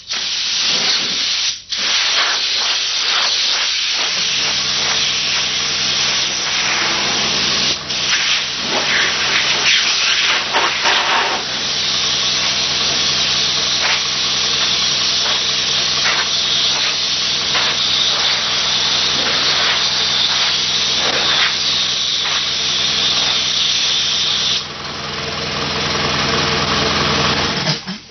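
Compressed-air blow gun hissing loudly as it blows dust off a car door panel before painting, with short breaks in the air early on. A steady low hum joins about four seconds in, and both stop near the end.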